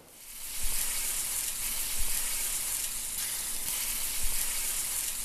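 Steady frying sizzle, like food on a hot griddle, fading in over the first moment and then holding even, with a few soft low bumps.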